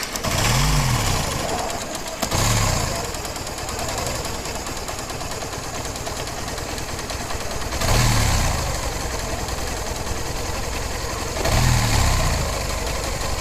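Motorcycle engine idling, with the throttle blipped four times so the revs rise and fall briefly each time. It is presented as an engine with a sound problem.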